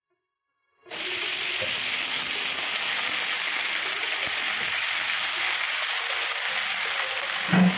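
Chopped vegetables dropped into hot oil in a wok start sizzling suddenly about a second in, then fry with a steady, loud sizzle. A brief low sound near the end stands out above it.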